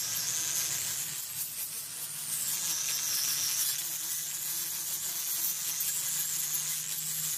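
Small angle grinder fitted with a Kutzall carbide shaping disc, running against soft sapwood as it shapes and cleans up a carved mushroom. The sound is a steady motor hum under a high, hissing grind whose pitch wavers up and down as the disc works the wood.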